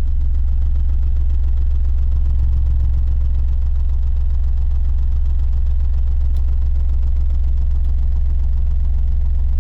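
Sealed MACH Audio subwoofers in a Ford Mustang playing a steady, very deep bass test tone of about 22 Hz at high volume, heard inside the car's cabin.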